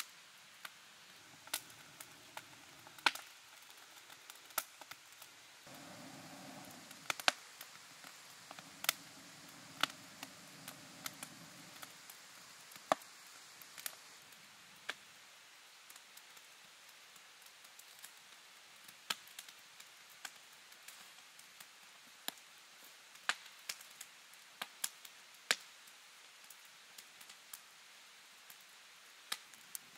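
Wood fire crackling inside a stone-and-clay oven, with sharp, irregular pops and snaps throughout.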